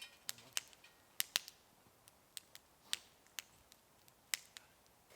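Wood fire crackling: sharp, irregular pops and snaps, about a dozen, with faint quiet between them.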